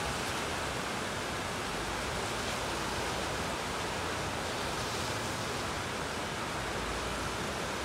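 Heavy downpour: rain falling steadily over the city, an even, unbroken hiss.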